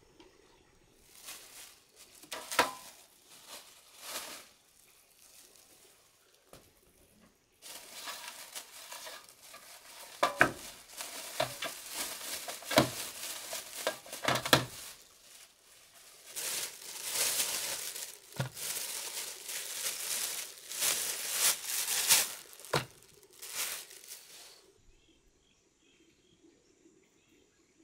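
Thin plastic bags crinkling and rustling as raw beef bones are pulled out of them, with a few sharp knocks as bones land on a metal tray.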